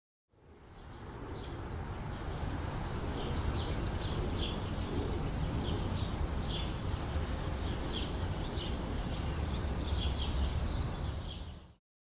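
Outdoor ambience of small birds chirping again and again over a steady low rumble. It fades in just after the start and fades out just before the end.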